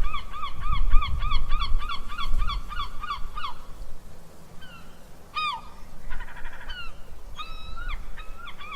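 Seagulls calling: a rapid series of repeated calls, about three a second, for the first three and a half seconds, then a few separate single calls, over a low background rumble.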